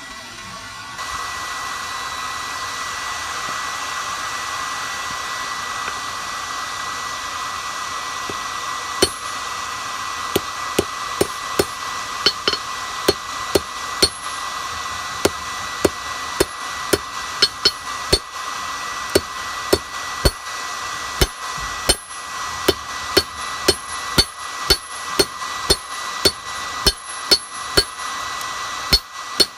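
Hammer blows on hot steel over an anvil, ringing metallic strikes at roughly one to two a second that begin about a third of the way in, over the steady rushing hiss of the forge running, which comes on about a second in.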